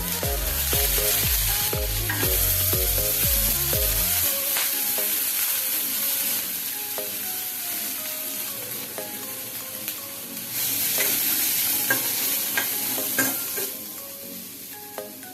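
Food sizzling as it fries in a pan, a steady hiss that swells again about ten seconds in and eases off near the end, over light background music.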